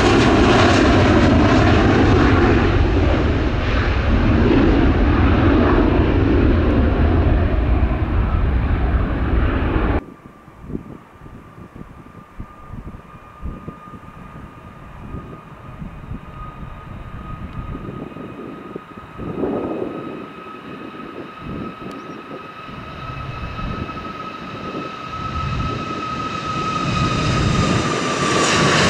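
Heavy jet airliner engines at takeoff thrust: loud jet noise that cuts off abruptly about ten seconds in. Then a quieter jet with a steady high engine whine, growing louder toward the end and dropping in pitch as it passes.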